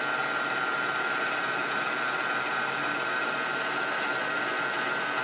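Shoe-finishing machine's spinning brush wheel and motor running with a steady whir and a thin high whine, buffing boot grease into a black leather boot.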